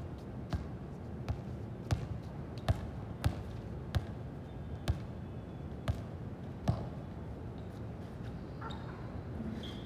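A series of sharp impacts about once a second, irregularly spaced, thinning out about two-thirds of the way through.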